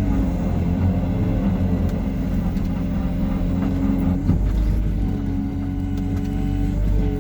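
Diesel engine of a Hyundai R140W-7 wheeled excavator running steadily while it works, with a constant hum and rumble; the engine note shifts briefly about four seconds in.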